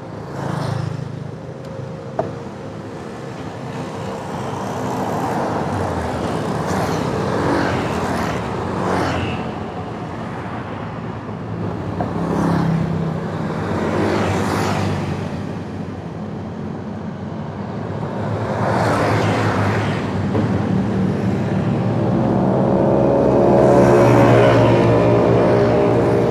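Road traffic: engines of passing vehicles swelling and fading several times, over a constant background of traffic noise.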